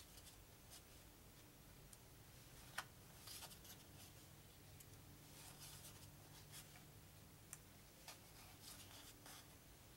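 Faint handling of cardboard trivia cards, slid off the top of a deck one by one onto a wooden table: soft brushing swishes every couple of seconds, with one sharper tap about three seconds in.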